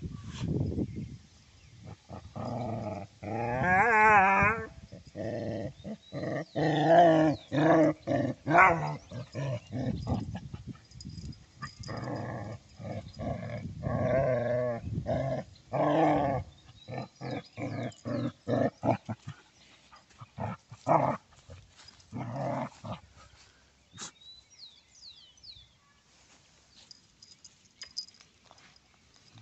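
Dogs play-fighting: a puppy and a larger dog trade repeated rough play growls, with one warbling growl a few seconds in. After about two-thirds of the way through the growling stops and only a few faint clicks remain.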